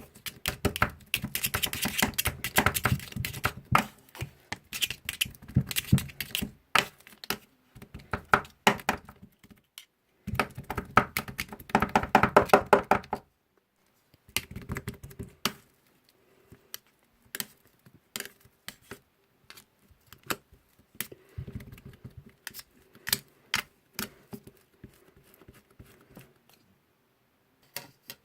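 Spatulas chopping and scraping on a rolled-ice-cream cold plate: fast runs of sharp clacks in the first few seconds and again around ten seconds in, then scattered single taps.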